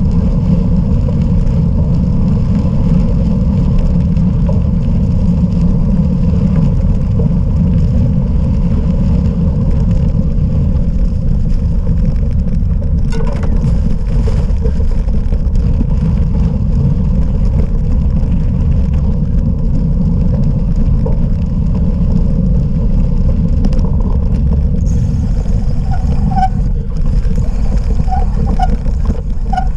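Steady low rumble of wind buffeting the microphone, with a few short high chirps and clicks in the last few seconds.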